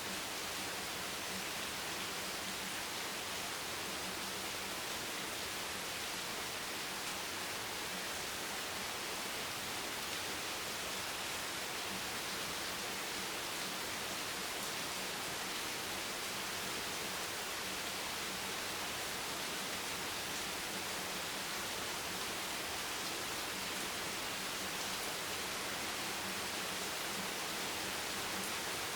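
Hammering rain falling steadily on a bench: a dense, even hiss of drops that does not change.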